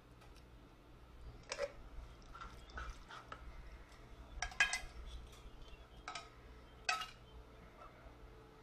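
Canned diced tomatoes being emptied from a metal can into a skillet of ground beef: a few faint taps and clinks of the can and spoon against the pan, the strongest about halfway through.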